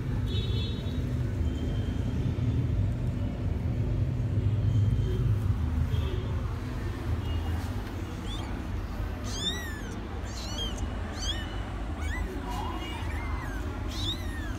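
Two-week-old kittens mewing: short, high-pitched squeaky calls that rise and fall, several in quick succession in the second half. A low steady rumble runs underneath, loudest in the first half.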